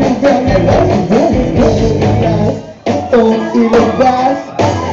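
Rock band playing live: a male singer over electric guitars, bass and drums. About three seconds in the music briefly drops away, the singing goes on over a thin backing with the beat gone, and the full band comes back in near the end.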